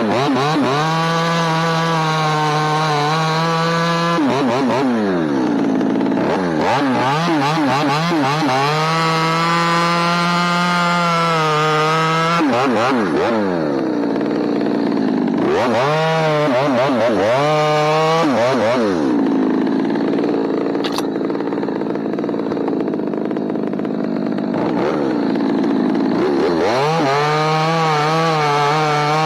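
Two-stroke chainsaw cutting branch stubs off a tree trunk, revving up to cutting speed and dropping back several times.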